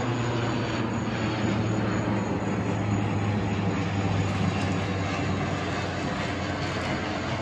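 Twin-engine turboprop airliner flying overhead: a steady drone with a strong low propeller hum.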